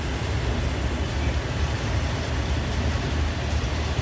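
A passenger train's coaches rolling past on the track, a steady low rumble.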